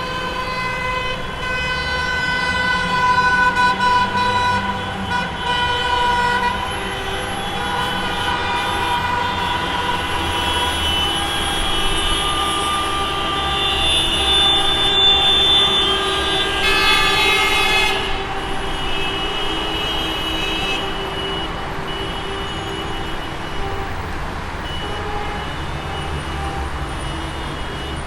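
Traffic jam: several car horns honking, many of them held for long, overlapping blasts, over the low rumble of idling engines and road traffic. The loudest cluster of horns cuts off suddenly about eighteen seconds in.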